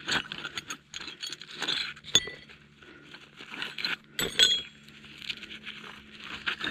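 Metal spanners clinking against each other as they are pulled from a tool roll, amid rustling of the roll and a plastic wrapper. Two sharper clinks ring briefly, about two seconds in and again just after four seconds.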